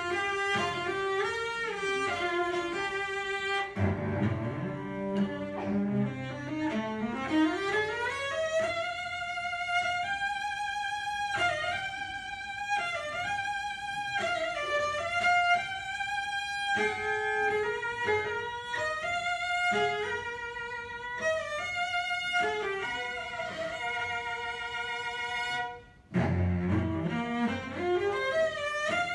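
Solo cello playing. About four seconds in, low notes climb in a long upward slide to high, sustained notes played with vibrato; near the end a brief break, then low notes climbing again.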